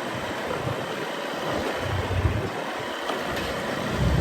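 Motorcycle ride heard from the back seat: an even rushing of road and air noise, with wind buffeting the microphone in irregular low swells.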